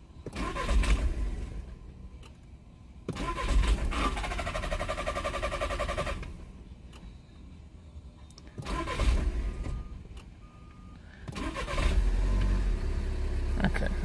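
2013 VW Jetta 2.0 TDI diesel being cranked on the starter four times. The first three attempts die out within a second or three without the engine staying lit. On the fourth, about eleven seconds in, it catches and keeps running. This is the car's crank/no-start and start-stall fault, traced to the cam position sensor signal missing a pulse.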